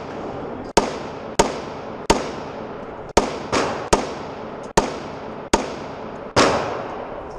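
Pistol fire at an indoor range: about nine shots at an uneven pace, some in quick pairs and triplets, each sharp crack followed by a reverberant tail.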